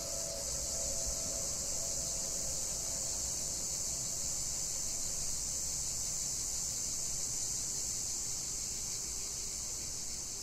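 A steady, high-pitched insect chorus chirring without a break, over a faint low rumble of outdoor ambience.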